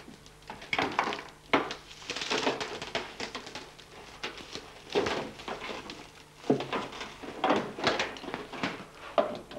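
Irregular scraping, creaking and knocking of a glued-in car window pane being cut and pried loose from its body opening.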